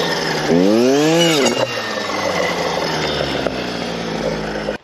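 Stihl clearing saw's engine running at speed, revved up and back down once about half a second in, then running steadily.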